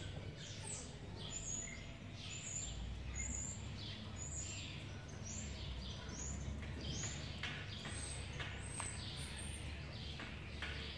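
Small birds chirping repeatedly, short calls that each sweep downward, about one or two a second, over a low steady background rumble.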